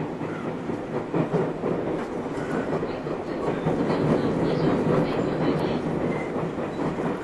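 Running sound heard inside motor car KuMoHa 221-70 of a JR West 221 series electric train: a steady rumble of wheels on rail with scattered clacks.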